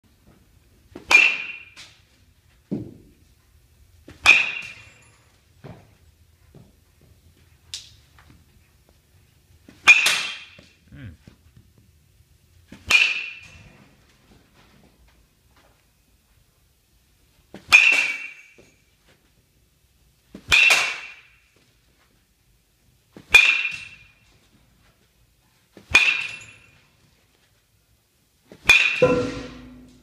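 Metal baseball bat hitting pitched balls, about ten times at roughly three-second intervals: each contact is a sharp ping with a brief ring. Fainter thuds fall between some of the hits.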